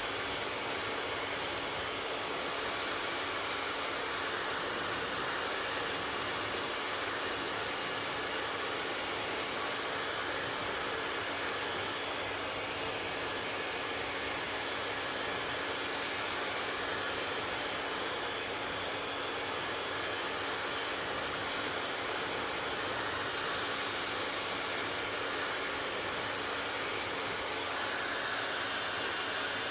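Hair dryer running steadily, a constant rush of blown air with a faint steady hum.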